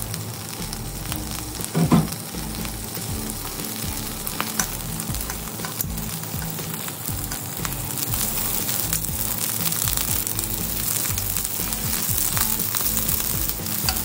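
Tiger prawns sizzling and crackling as they sear in hot oil in a nonstick pot, with small clicks of metal tongs turning them. The sizzle grows stronger in the second half, and there is a louder clunk about two seconds in.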